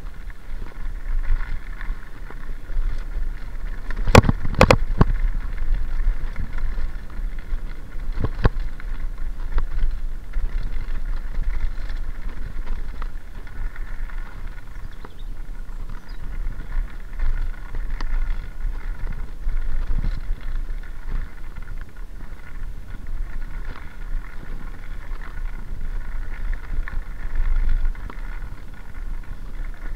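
Mountain bike rolling fast downhill on a gravel track: a steady rumble and rattle of tyres and frame over the loose surface, with wind buffeting the microphone. Sharp knocks about four and eight seconds in, and a few lighter ones later, as the bike hits bumps.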